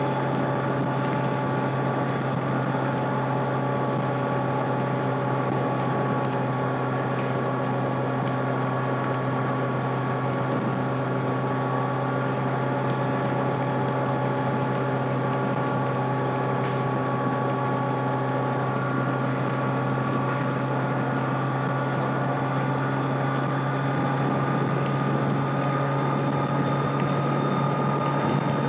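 Stock 2025 Kawasaki Z900's inline-four engine and exhaust running at a steady highway cruise, holding an even note, which climbs slightly near the end as the bike picks up a little speed.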